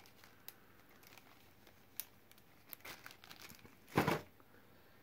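Plastic zip-top sandwich bag holding model-kit tires crinkling as it is handled, with faint scattered crackles and one louder, brief rustle about four seconds in as it is set down in the cardboard kit box.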